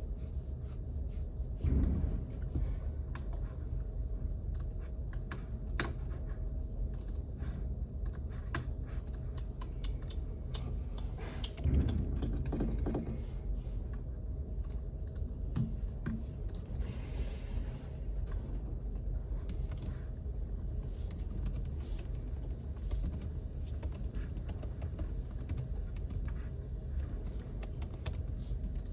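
Typing on a computer keyboard: irregular key clicks over a steady low room hum, with two louder thumps about 2 and 12 seconds in.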